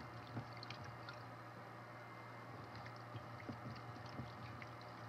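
Gloved hands washing raw chicken pieces in a bowl of water: faint small splashes, sloshes and squelches.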